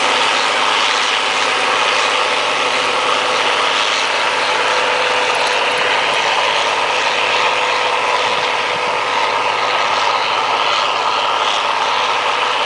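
Allis-Chalmers Gleaner L3 combine harvester running while harvesting barley, its engine and threshing machinery making a loud, steady mechanical noise.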